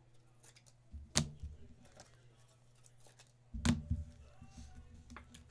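Trading cards being handled and sorted on a table: two sharp clicks, about a second in and again a little past halfway, each with a low thud of handling.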